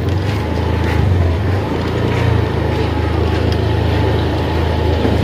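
Motorbike engine running steadily, heard from on the bike, a constant low drone with a faint thin whine above it.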